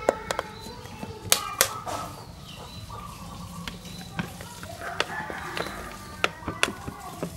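Thin plastic water bottle crackling and clicking as hands grip and turn it on a homemade line-winding spool, with two sharp clicks about a second and a half in. A rooster crows in the background about two-thirds of the way through.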